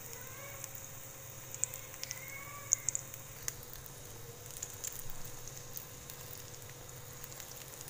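Egg-dipped bread slices shallow-frying in oil in a flat pan: a steady sizzle with scattered small crackles and pops.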